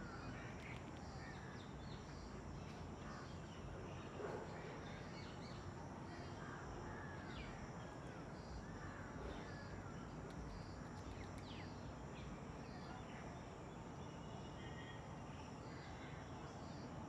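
Faint outdoor ambience of birds calling, with many short chirps and a high note repeating at a steady pace; a brief soft knock about four seconds in.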